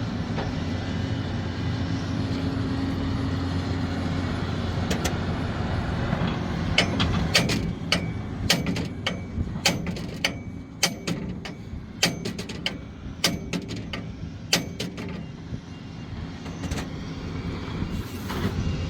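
Heavy diesel engine of a Sumitomo SH370LHD-6 excavator running steadily. From about five seconds in, a rapid series of sharp knocks and clanks from the machine's work, loudest in the middle, fades out again near the end.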